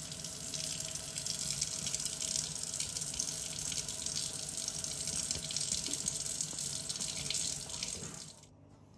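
Kitchen mixer tap running in a steady stream into a metal sink basin, an even hiss of falling water that cuts off about eight seconds in.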